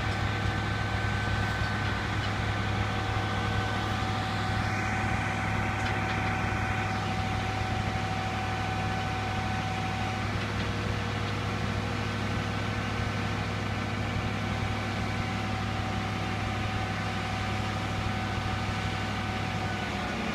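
Grove TMS 250A truck crane's diesel engine running steadily: a low drone with several steady whining tones over it. A short hiss sounds about five seconds in and lasts a couple of seconds.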